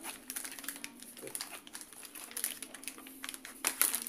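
Clear plastic air-column cushion packaging crinkling and crackling as it is handled, in irregular crackles that grow louder near the end.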